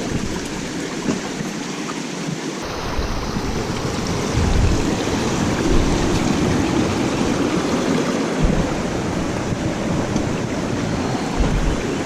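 Swollen creek water rushing steadily, running high after heavy rain, with a few short low thumps.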